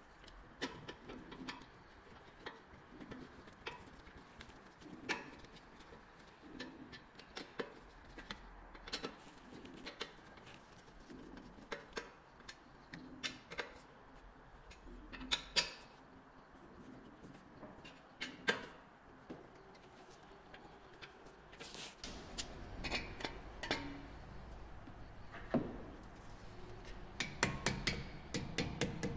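Scattered sharp metallic clicks and clinks of hand tools and brake parts being handled, at irregular intervals. A low rumble comes in about two-thirds of the way through, and the clicks come thicker near the end.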